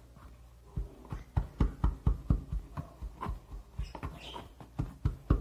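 Wooden pestle pounding ingredients down inside a glass jar: a quick run of dull thuds, about four a second, starting about a second in.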